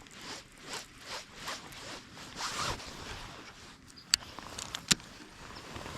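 Fishing reel being cranked, a rasping whirr that pulses with each turn of the handle, about two or three turns a second. Two sharp clicks near the end.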